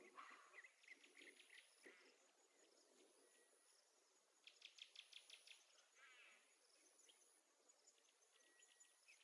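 Near silence, with faint high, rapid chirps and trills in the background: a short run at the start, a louder run about four and a half seconds in, and a brief falling chirp at about six seconds.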